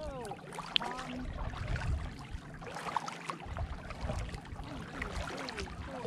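Water lapping and sloshing against a kayak hull on choppy open water, with a low, uneven rumble of wind on the microphone.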